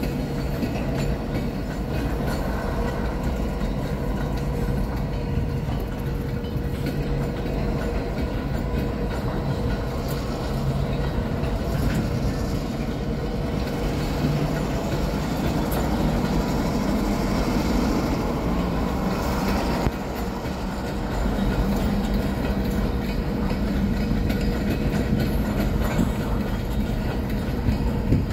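Freight train of covered hopper cars rolling past on the yard track, the wheels clicking over the rail joints, over a steady low rumble and hum.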